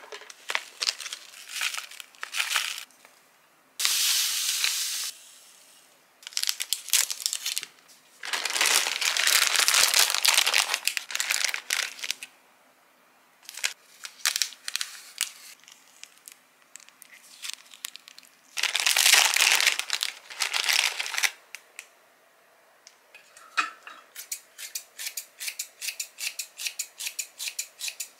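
Plastic food packets crinkling and tearing open, with several long rustling stretches as their contents are shaken out. In the last few seconds, kitchen scissors snip green onion in a quick even run, about three cuts a second.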